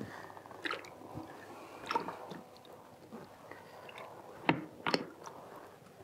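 Handling noise from a plastic bucket of spun-out wash water and its drain tube being moved: soft squishy rustling with a few sharp clicks and knocks, the loudest two close together near the end.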